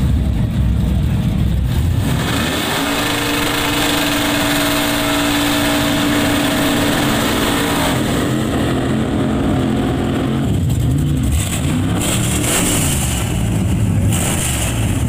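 Black compact pickup truck doing a burnout. After a low engine rumble for the first couple of seconds, the engine is held at high revs while the spinning rear tyres squeal. From about eight seconds in, the revs rise and fall.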